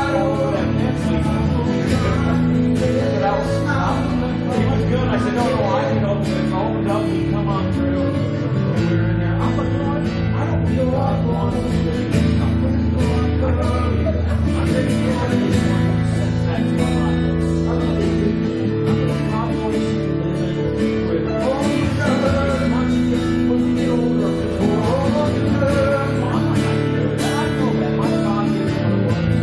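Worship music: guitar chords held and strummed under a wavering sung melody, playing steadily without pause.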